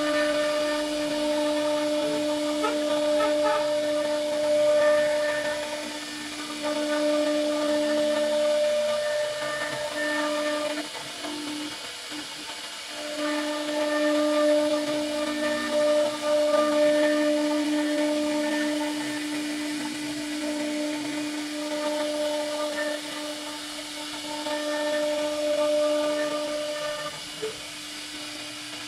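CNC router spindle whining at a steady high pitch while its bit carves into a wooden panel, with a hiss of cutting over it. The whine fades for a couple of seconds near the middle and again near the end, then picks up again.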